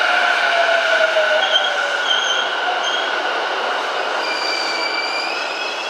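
Sotetsu 11000 series ten-car electric train running along a station platform. Its motors give a steady whine, with a lower tone slowly falling in pitch over the first two seconds. Short high wheel squeals come around the middle, and the sound eases as the last car goes by.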